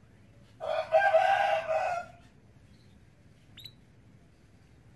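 A rooster crowing once, about a second and a half long, starting about half a second in. A single short, high, falling chirp follows about three and a half seconds in.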